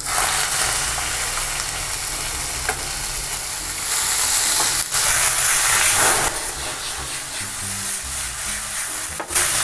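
Boneless chicken pieces sizzling as they sear in hot oil in a frying pan, stirred with a wooden spatula. The sizzle grows louder for a couple of seconds around the middle.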